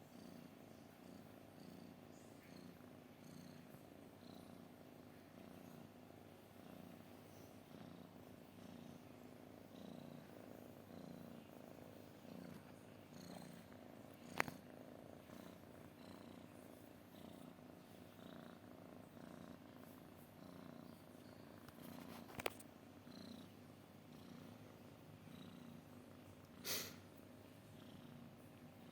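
Domestic cat purring faintly and steadily in an even, pulsing rhythm. Two sharp clicks sound about halfway and about three-quarters of the way through, and a brief noise comes near the end.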